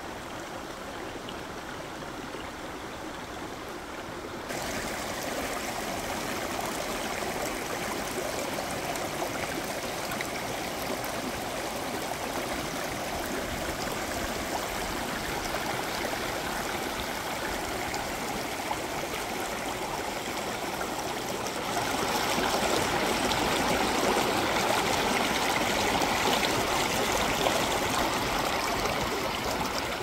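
Shallow mountain stream running over stones and between boulders: a steady rush of water that gets louder about four seconds in and again about twenty-two seconds in.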